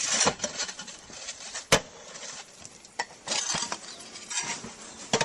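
Clay roof tiles knocking and clinking as they are handled, with one sharp knock about two seconds in and another near the end, over a scratchy rustle.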